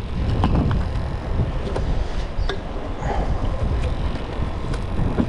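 Low rumble of wind buffeting the microphone, with a few light knocks and clicks.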